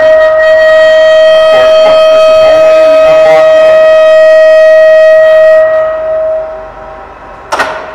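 The Doall D5100R radial drill's hydraulic drive whining with a loud, steady single pitch while it powers the head up or down. The whine fades out about six seconds in, and a sharp click follows near the end.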